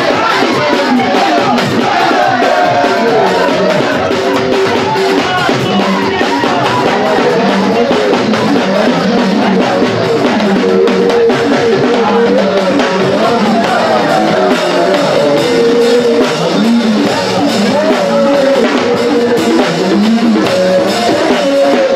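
Upbeat dance music with drums and a singing voice, playing steadily.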